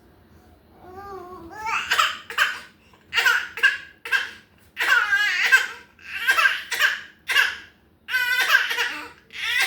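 A 5-month-old baby's fake crying put on for attention: a string of about ten short, loud, strained vocal bursts, starting about a second in.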